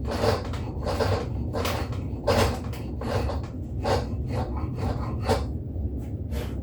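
Spokeshave cutting shavings from a white oak axe handle in quick repeated strokes, about two a second.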